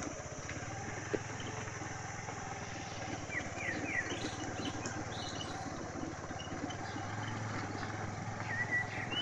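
Motorcycle engine running steadily as the bike is ridden along a dirt trail, with a few short high chirps over it about three and a half seconds in and near the end.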